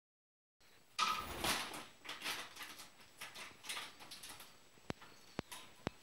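Cockatiel chicks giving rapid, raspy begging calls in a string of bursts, loudest at the start and fading off, followed by three sharp clicks near the end.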